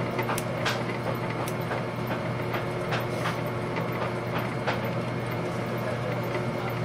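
Steady machine hum with scattered light clicks and snips of small surgical scissors and forceps cutting.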